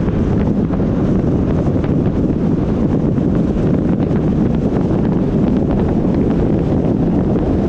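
Steady, loud wind rumble on the microphone, unchanging throughout.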